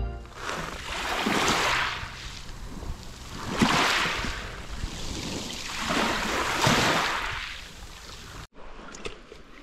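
Small waves washing in on a pebble beach, three swells about two and a half seconds apart, cut off short near the end.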